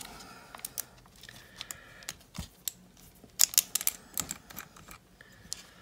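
Hands twisting the plastic screw cap off an applesauce squeeze pouch: a run of small plastic clicks and crackles with handling of the pouch, loudest a little past the middle.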